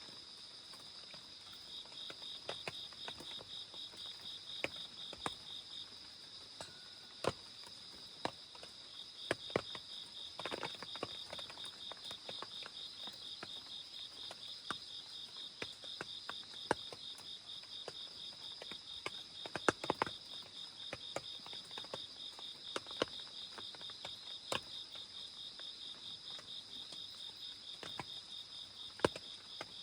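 Crickets trilling without a break, one high steady tone with a rapidly pulsing chirp just below it, while scattered raindrops tap irregularly and sharply.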